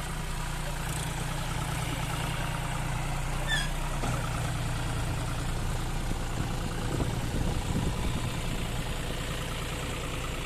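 John Deere tractor's diesel engine running steadily at low speed under load, pulling a heavily loaded trailer over a rough dirt track.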